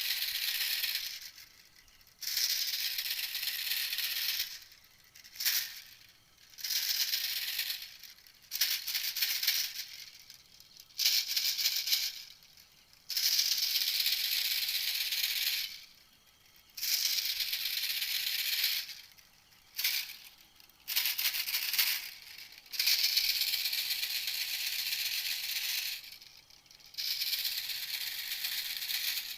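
A dry, rattling call repeated in bursts of one to three seconds with short pauses between them, from a recording of the animal the title names 'ตอกติวเม็ดแตง', most likely a bird, played as a hunting lure.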